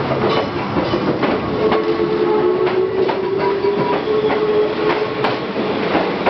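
Electric train (set SE63) pulling out past the platform: wheels clicking over rail joints about twice a second, with a steady motor whine underneath.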